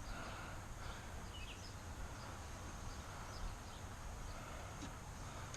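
Low, steady outdoor background noise with a few faint, short, high chirps scattered through it.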